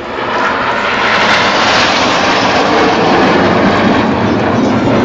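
Red Arrows' BAE Hawk jets in close formation flying past, a loud jet roar that swells within the first half second and holds, its pitch dropping as they pass.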